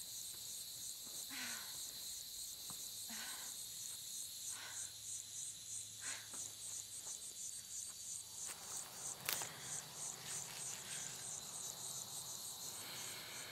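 Insects chirring in a steady, high-pitched pulsing drone, about three pulses a second, fading near the end. A single sharp click sounds about nine seconds in.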